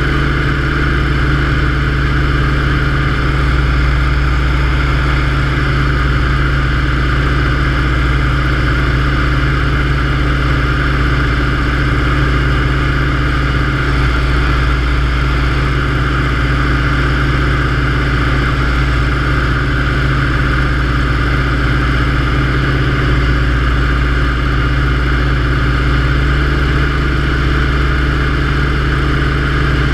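Yak-52's nine-cylinder M-14P radial engine and propeller running steadily in cruise flight, heard from inside the cockpit.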